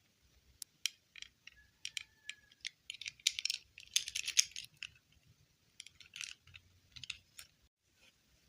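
Small hard plastic doll pieces handled by hand: a string of sharp clicks and light rattles, busiest around the middle.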